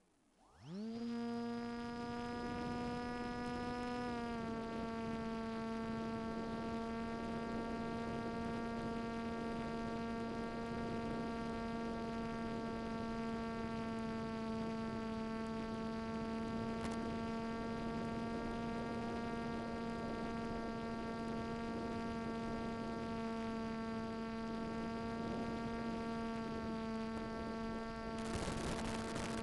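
Electric motor and propeller of a Swift II FPV flying wing spinning up within about a second and then running at a steady whine. The pitch eases slightly lower about four seconds in and holds through the flight. A brief burst of hiss comes near the end.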